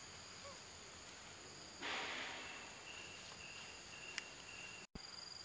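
Forest insects chirping in a steady high drone, with a pulsing, repeated chirp joining about halfway. A short rustling noise about two seconds in is the loudest sound, and the sound drops out for an instant near the end.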